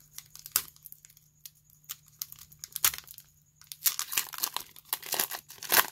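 Pokémon booster pack's foil wrapper crinkling and tearing as it is peeled open by hand. Sparse crackles at first, growing dense about four seconds in, with the loudest crackle just before the end.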